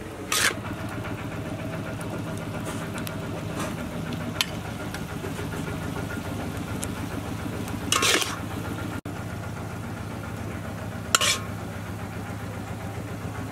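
A steady engine-like hum runs throughout. Brief sharp clatters come about half a second in, at around eight seconds and at around eleven seconds.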